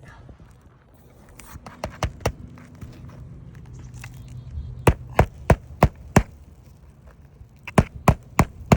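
Hammer strikes driving roofing nails through asphalt shingles: two knocks, then a quick run of five, then a run of four near the end, about three a second.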